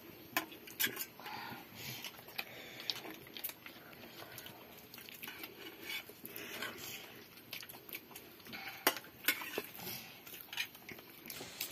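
Scattered light clinks and scrapes of small utensils against stainless steel bowls during a meal.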